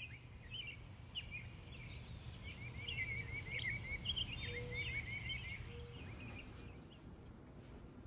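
Small birds singing, with scattered chirps and quick repeated trills, over a steady low rumble of rushing river rapids. The birdsong thins out near the end.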